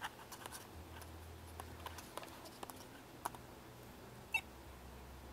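Scattered faint key clicks from typing on the HP 100LX palmtop's small keyboard, with two louder clicks about three and four seconds in.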